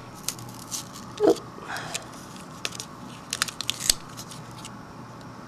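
Tape and a thin plastic solder-paste stencil being peeled off a circuit board and its cardboard jig, giving a run of crackles and small clicks with a few tearing sounds. A brief low squeak comes about a second in.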